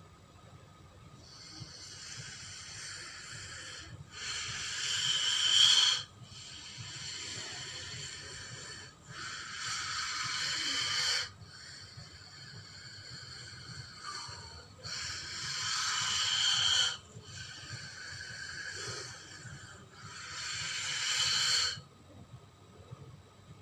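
Giant snake hissing sound effect, breath-like: four times over, a softer hiss is followed by a louder one that swells and cuts off sharply.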